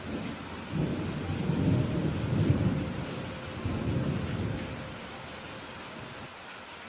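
Steady rain hissing, with a low roll of thunder that swells about a second in, rumbles for a few seconds and fades away.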